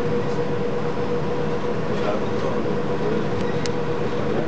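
Palm Jumeirah Monorail car running along its guideway, heard from inside the front cabin: steady running noise with a steady hum. A single short tick sounds about three and a half seconds in.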